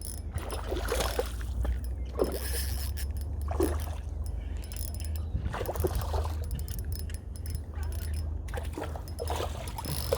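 Small spinning reel being wound and a hooked whiting splashing at the surface as it is brought in, with a steady low wind rumble on the microphone. The splashes and reel clicks come in short bursts every second or two.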